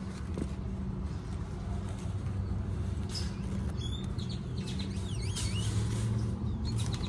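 A vehicle engine idling with a steady low hum, and birds chirping a few times in the second half.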